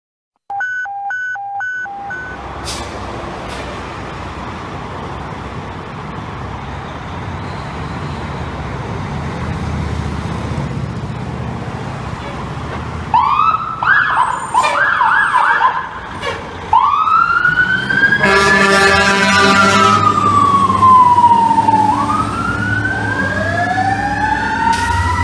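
A 1995 Spartan Gladiator/Saulsbury fire engine pulls out with its engine rumbling. After about half the time come quick electronic siren yelps, then a steady air-horn blast. Next a Federal Q2B mechanical siren winds down in a long falling tone and is wound up again with rising siren wails.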